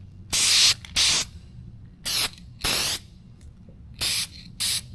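Aerosol spray can of clear coat hissing in six short bursts, roughly in pairs, each well under half a second.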